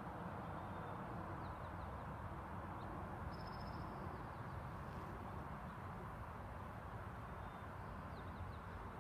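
Steady outdoor background hum with a few faint, brief high bird chirps, and a short high trill about three and a half seconds in.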